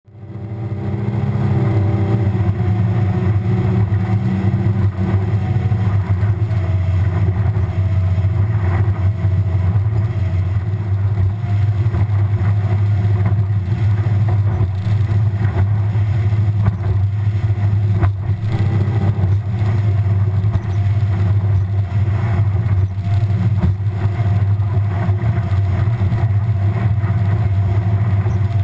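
Skeeter bass boat's outboard motor running steadily at speed, a low, even drone with rushing wind and water noise over it, and one sharp knock about eighteen seconds in.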